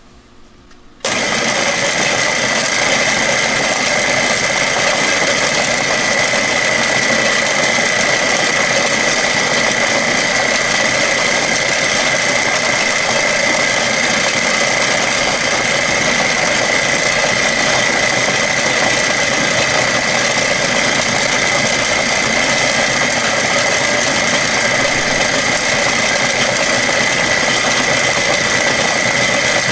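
Milling machine with an end mill cutting a flat spot into an aluminum AR-15 lower receiver: it comes on abruptly about a second in and runs steadily and loudly, with a constant high whine over the cutting noise.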